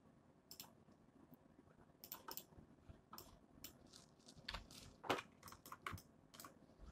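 Faint, irregular clicking of a computer keyboard and mouse, a couple of dozen short clicks at an uneven pace.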